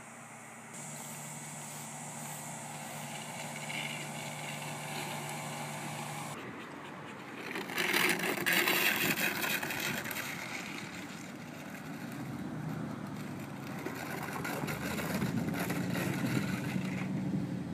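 A steady low hum, then the scraping and crunching of a corrugated plastic drainage pipe being dragged by a dog across loose gravel, loudest about eight to ten seconds in.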